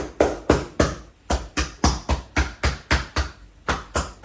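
A hand patting a person's back in a steady rhythm, about four firm pats a second, to help loosen phlegm after coughing.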